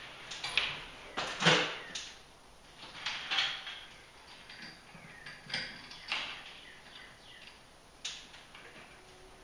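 Irregular sharp metallic clicks, clanks and knocks of hand tools and steel lift cable being handled on garage door hardware while a new cable is threaded and clamped, the loudest knocks about a second and a half in and around six seconds.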